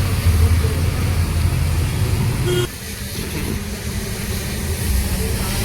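Highway traffic: the steady rumble of vehicle engines and tyres on the road. A brief horn-like tone sounds about two and a half seconds in, then the level drops suddenly and the traffic noise goes on quieter.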